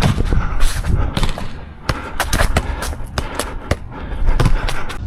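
A rapid, irregular series of loud knocks and clatters over a low rumble.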